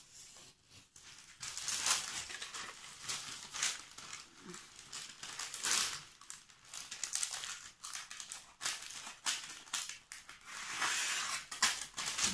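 Sheet of baking paper rustling and crinkling in repeated short bursts as it is handled and cut with a craft knife.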